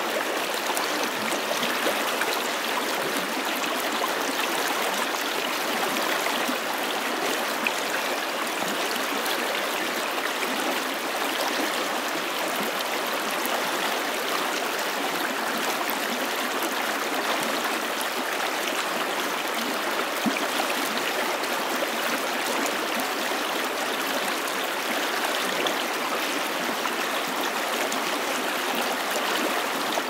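Shallow stream running fast over and around a rock, water rushing and splashing at a steady level throughout.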